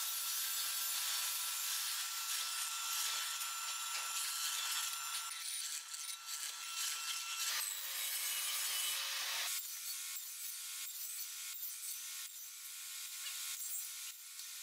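Hollow-chisel mortiser boring a square mortise into pine: a steady, dense hiss of cutting with a high whine from the machine. About eight seconds in it gives way to a table saw cutting tenon shoulders in the end of a pine workpiece, a thinner hiss with many short scraping ticks.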